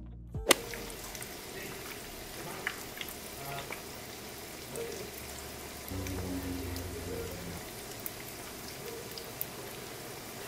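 Food frying in oil in a pan: a steady sizzle with scattered crackles and pops, starting abruptly about half a second in.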